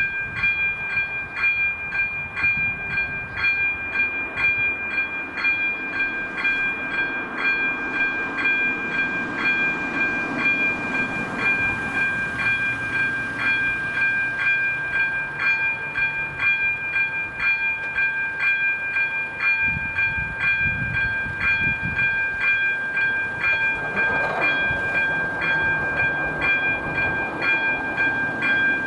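A level crossing's electronic warning bell sounding: a steady ringing tone pulsed about twice a second. Underneath, an approaching train rumbles, louder from about twenty seconds in.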